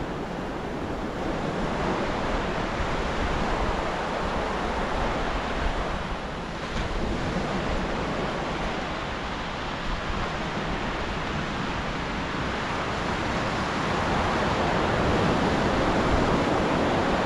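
Ocean surf breaking on a sandy beach: a steady rushing noise that swells a little near the end, with wind buffeting the microphone.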